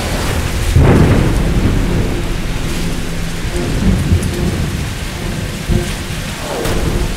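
Thunderstorm sound effect: steady heavy rain, with a loud clap of thunder about a second in that rumbles away slowly.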